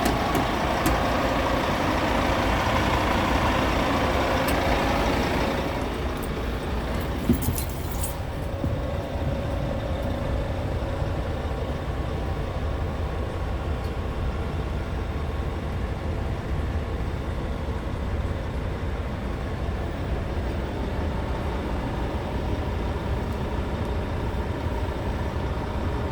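Scania P truck's diesel engine running at idle. It is louder and brighter for about the first five seconds, then settles to a lower, steady running sound, with a few light clicks about seven to eight seconds in.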